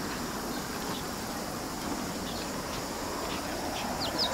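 Steady outdoor background hiss, with a quick run of short, high chirps from a small bird near the end.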